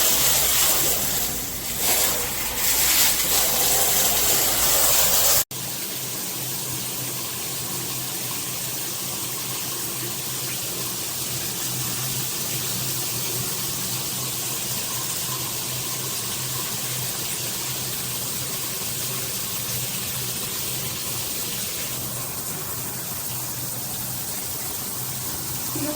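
Handheld shower head spraying water in its pressure blast mode, a loud hiss for about five seconds. It then cuts off sharply and is followed by a steady, quieter rush of running shower water.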